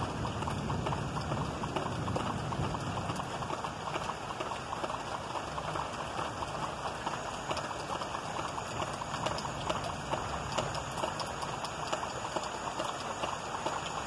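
Rain falling steadily in a thunderstorm: a dense patter of drops striking nearby surfaces. A low rumble underneath fades out over the first few seconds.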